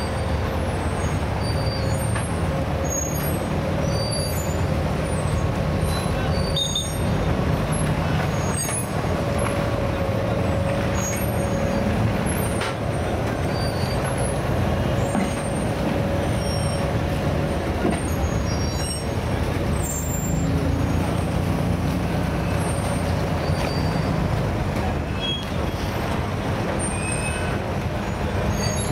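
Diesel engines of wooden abra water taxis running close by at the pier: a steady low rumble with a constant higher hum on top.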